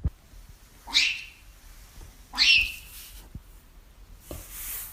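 A cat giving two short, high-pitched cries about a second and a half apart, followed near the end by a brief hissing noise.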